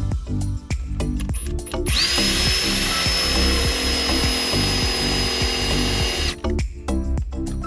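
A small power tool runs for about four seconds with a steady high whine and then cuts off suddenly, over background music with a steady beat.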